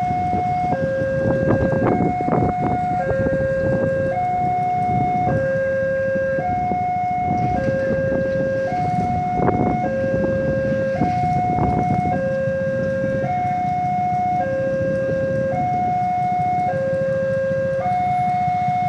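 Railway level-crossing warning alarm sounding, an electronic signal switching back and forth between a higher and a lower note about once a second, the warning that a train is approaching. A steady rumble of traffic runs underneath.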